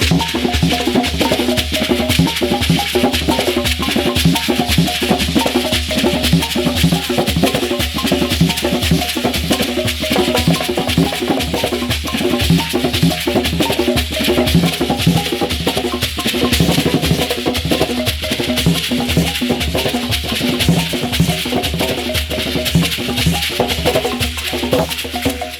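Traditional Ugandan instrumental music played without singing: a fast, dense run of short pitched struck notes with drums beneath, over a steady rattling shaker.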